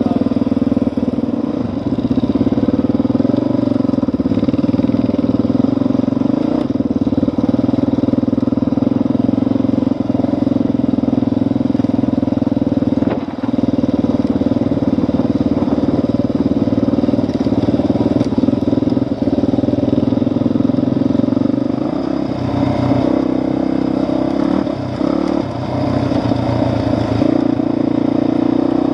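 Dirt bike engine running steadily while being ridden, with the engine note shifting as the throttle changes near the end.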